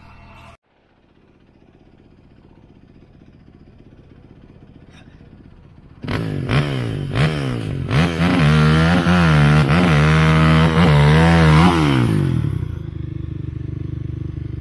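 A four-wheeler's (ATV's) engine, quiet at first, starts revving hard about six seconds in, in repeated rising and falling blips as the machine is hauled back up a steep sand slope. Near the end it drops to a lower, steady run.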